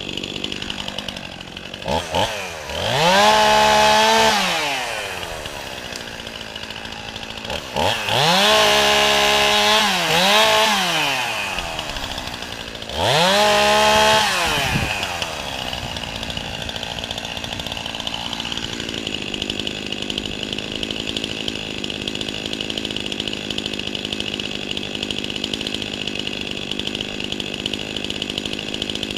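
Two-stroke chainsaw idling, revved up to high speed three times for a couple of seconds each, dropping back to idle between and after.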